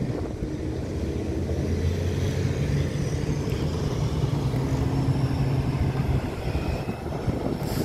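Low engine rumble of road traffic, swelling in the middle and easing off near the end.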